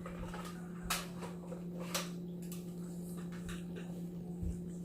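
Faint eating sounds: a few soft clicks and smacks scattered over a steady low hum, with a soft low thump near the end.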